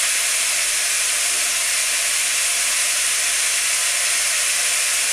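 Diced pork and onions frying in oil in a pot, giving a steady, high sizzle.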